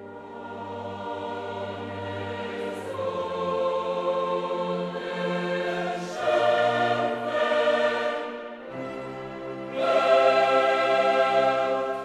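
Classical choral music: a choir singing sustained chords with orchestra, swelling louder about six seconds in and again near the end.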